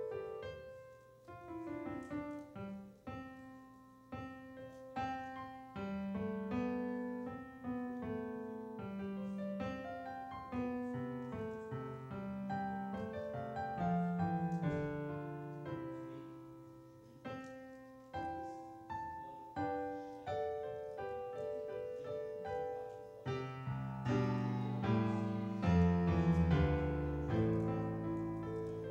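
Piano playing a slow piece, its notes struck and left to ring; fuller low chords come in near the end.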